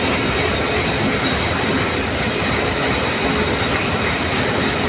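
Steady, dense clatter and hum of running textile warp-knitting machinery, with a faint constant tone.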